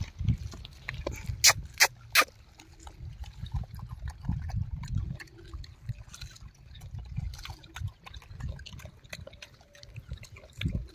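Gray langurs chewing and handling pomegranates close to the microphone, with three sharp clicks about one and a half to two seconds in and irregular low rumbling underneath.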